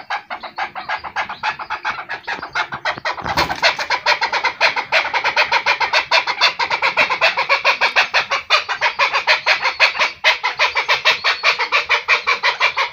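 Chukar partridge calling in a rapid run of clucking chuck notes, about six a second, growing louder and fuller about three and a half seconds in. It is the excited call of an agitated bird.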